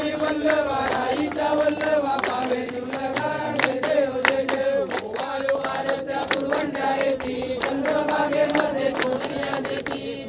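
A crowd singing a Ganesh devotional song together in unison, clapping along to it.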